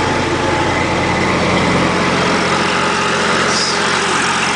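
Diesel engine of a portable light tower running steadily.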